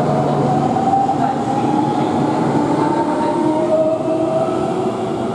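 JR Kyushu 813 series electric train accelerating away from the platform. Its inverter-driven traction motors give a whine that climbs slowly in pitch over the noise of the wheels on the rails.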